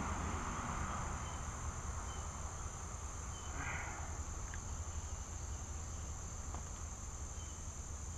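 A chorus of insects droning steadily at a high pitch, with a few faint short chirps over it.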